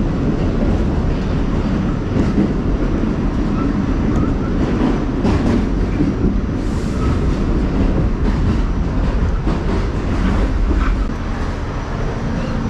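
New York City subway car in motion, heard from inside: a steady loud rumble of wheels on rails with scattered clacks and brief squeals. It gets somewhat quieter about eleven seconds in as the train slows into a station.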